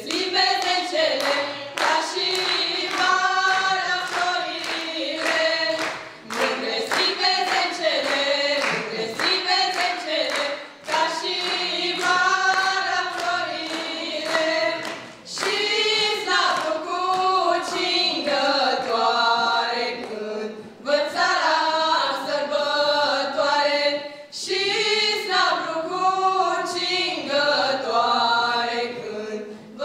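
Four women singing a Romanian folk song together, unaccompanied and in harmony. The song goes in phrases of four to five seconds, with a short breath between them.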